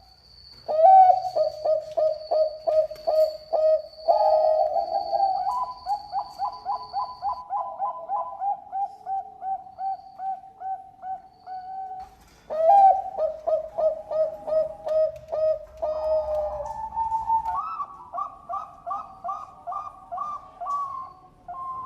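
Zebra dove (Thai-bred 'perkutut bangkok') cooing its song: two long bouts of rapid staccato coo notes, about three a second, each bout opening loudest and stepping up in pitch partway through.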